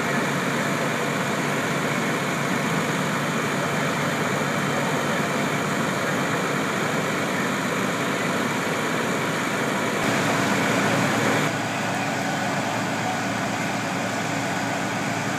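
Fire engine's engine running steadily, a dense even noise. It gets a little louder about ten seconds in, then changes abruptly a moment later.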